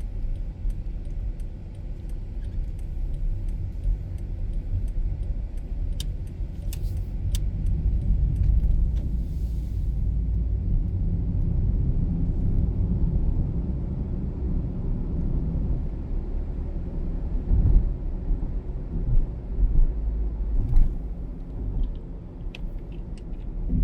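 Car driving on a city road, a steady low rumble of engine and tyre noise heard from inside the cabin, with scattered faint ticks and a few short thumps in the second half.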